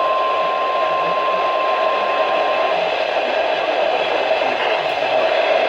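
Weather-radio 1050 Hz alert tone, one steady pitch, heard over a hiss of radio static. The tone cuts off a little under three seconds in, and the static carries on.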